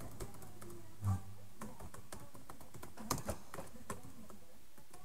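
Typing on a computer keyboard: irregular key clicks, with a dull low thump about a second in and a quick run of louder clicks a little after three seconds.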